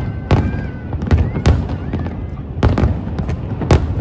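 A fireworks display bursting overhead: a string of loud bangs, about six in four seconds, irregularly spaced, over a continuous low rumble.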